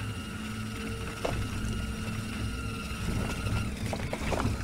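A homemade RC wheelbarrow truck driving over concrete, heard from a camera mounted on it: its electric drive motor whines steadily over the rumble of the wheels, with a few light knocks as the load and body rattle.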